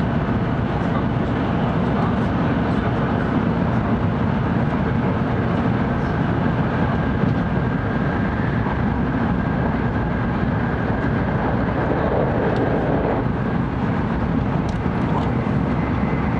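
Steady running noise heard inside the passenger car of a 700 series Shinkansen travelling at speed: a low, even rumble of the wheels on the rails with the rush of the moving car.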